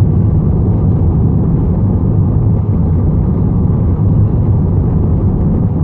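Steady low rumble of engine, tyre and road noise heard from inside the cabin of a Volkswagen van cruising along an open road.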